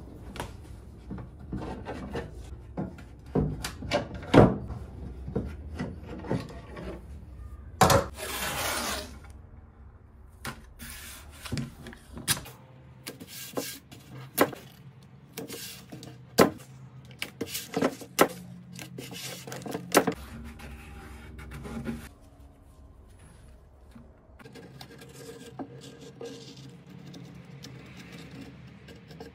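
Workbench handling sounds from wooden dresser drawers, steel bar clamps and masking tape: a string of sharp clicks and knocks with rubbing, and a rasping stretch about eight seconds in.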